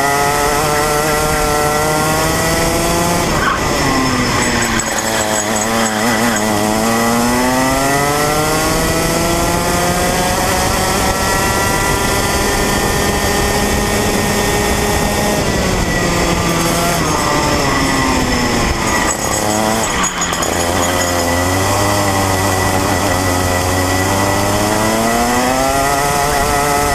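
125cc Rotax Minimax single-cylinder two-stroke kart engine running hard, heard from on the kart. Its pitch drops as it slows for corners, about four seconds in and again around eighteen to twenty seconds, and climbs back up on the straights.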